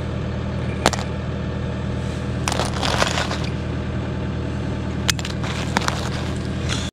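Ice crunching and cracking: one sharp crack about a second in, a longer crunch a couple of seconds later, and a few more cracks near the end. Under it, a petrol generator runs with a steady hum.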